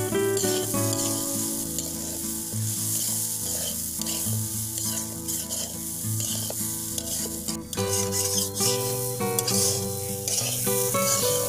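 Rice with green chillies and chilli paste sizzling as it is stir-fried in a black iron karahi, a metal spatula scraping and turning it against the pan. Background music with sustained notes plays underneath.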